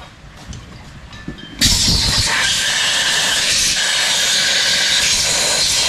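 Compressed-air blow gun blasting into the opened two-stroke engine. It starts suddenly about a second and a half in as a loud, steady hiss, blowing out dust and metal crumbs before the new piston goes in.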